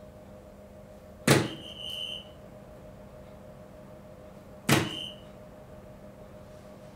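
Two soft-tip darts striking a DARTSLIVE electronic dartboard about three and a half seconds apart, each a sharp knock followed by a short electronic beep from the machine registering the hit. A steady machine hum runs underneath.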